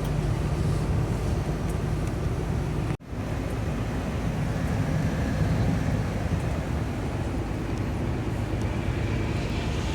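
Sitrak truck's engine and road noise while driving: a steady low drone with an even rushing hiss. It drops out abruptly for a moment about three seconds in, then carries on.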